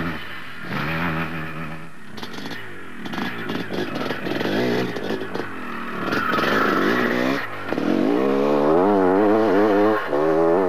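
KTM enduro motorcycle engine revving up and down as the bike is ridden over rough, grassy ground, growing louder from about six seconds in as it comes closer.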